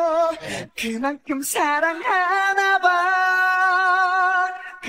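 A solo singing voice from the background song, singing short notes and then holding a long note with vibrato.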